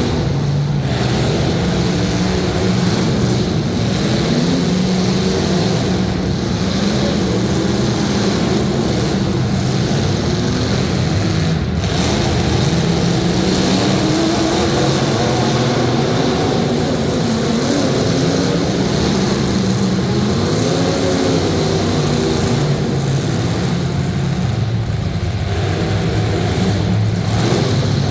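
Several demolition derby car engines running and revving hard at once, their pitch rising and falling, with a single crash-like knock about halfway through.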